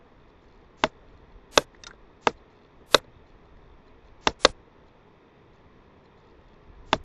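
Computer mouse buttons clicking: about seven short, sharp clicks at irregular intervals, two of them in quick succession a little past the middle.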